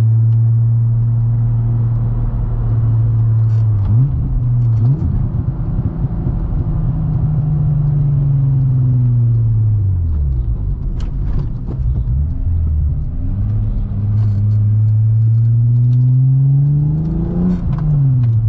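12-valve VR6 engine with aggressive 268 cams, in a Mk2 Golf GTI, driven through the gears. It cruises at a steady note and swings quickly up and down twice around four to five seconds in. The revs fall between about eight and ten seconds, then climb steadily from about fourteen seconds to a peak and drop sharply at a gear change near the end.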